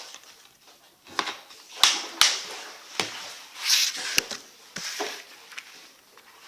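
Handling of a disc case and its contents: several sharp plastic clicks mixed with short rustles.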